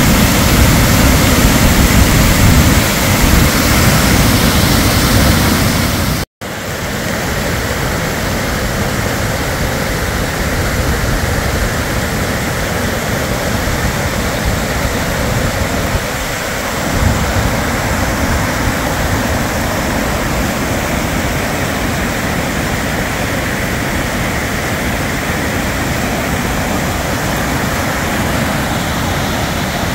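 Loud, steady rush of storm floodwater: runoff pouring over a road like a waterfall, then, after a cut about six seconds in, a slightly quieter, even rush of a river of runoff flowing across the ground.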